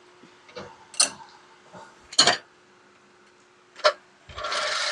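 Sharp metallic clicks, three of them spread over about three seconds, then a loud hiss lasting over a second near the end, as the car is let down off its jack.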